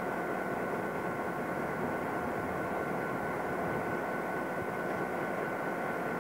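Steady rail-yard diesel rumble, continuous and unchanging, with a constant high-pitched whine over it.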